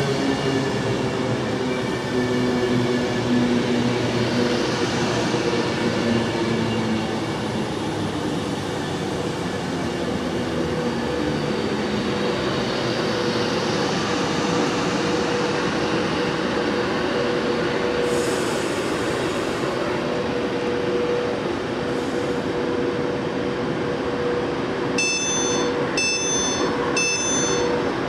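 Virgin Pendolino (Class 390) electric train moving along the platform and away: steady wheel-on-rail noise and motor tones over a constant hum. Near the end, three short high-pitched beeps.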